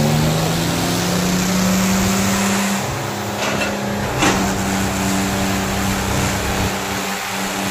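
Tractor diesel engines, a John Deere 5310 among them, running hard under load as the two hitched tractors pull against each other. The engine pitch rises through the first few seconds and then holds steady. A sharp crack comes about four seconds in.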